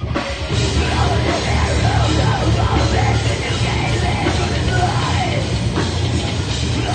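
Heavy rock band playing live and loud, with yelled vocals over the full band.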